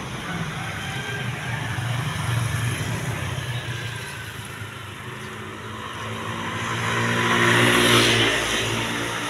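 A car engine running with a steady low hum. About seven seconds in the engine sound swells to its loudest near the end, then eases off.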